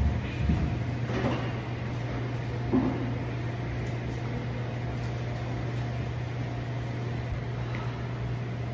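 Steady low mechanical hum of room ventilation, with a few dull knocks in the first three seconds as dumbbells are picked up off the floor and handled.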